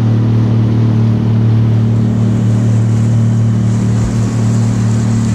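Boat engine running steadily at constant speed, a low even hum with a haze of wind and water noise over it.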